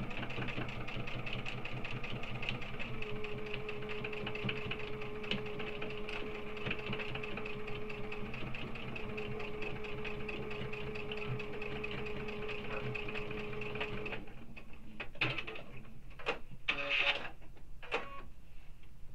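Domestic sewing machine stitching steadily through several layers of fabric, a fast even run of needle strokes over a motor hum, stopping about fourteen seconds in. A few separate clicks and knocks follow as the work is handled.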